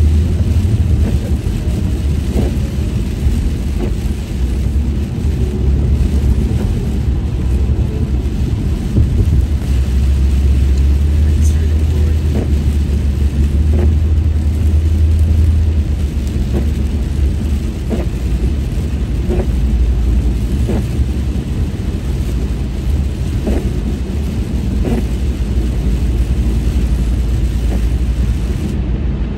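Steady low rumble of road and engine noise inside a car driving on a wet freeway, with the hiss of tyres on wet pavement. Faint short knocks come every second or two.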